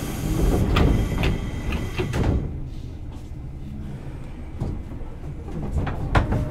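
Sliding passenger doors of a JR 205-series commuter train opening at a station stop, with thuds and clicks in the first two seconds or so, then the quieter hum of the stopped train.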